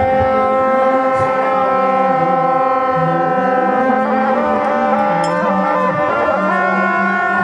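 Tibetan monastic ritual horns playing long, overlapping held notes, with a lower note that drops about three seconds in and rises back near the end.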